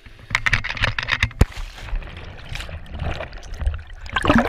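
A man plunging into the sea, then water churning and gurgling close to the microphone. A sharp knock comes about a second and a half in and a louder rush of water near the end.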